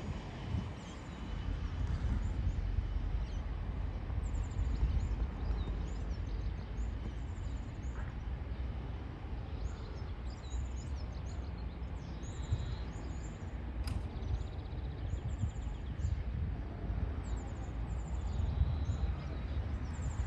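Small birds chirping, short high calls repeated on and off, over a low, uneven rumble. One sharp click about fourteen seconds in.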